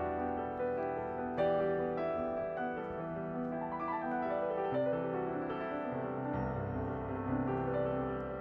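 Background music: a gentle piano piece with sustained chords and a shifting bass line.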